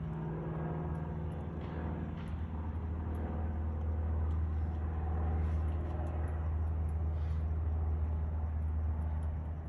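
A steady low rumble of background noise that swells slightly in the middle, with a few faint clicks over it.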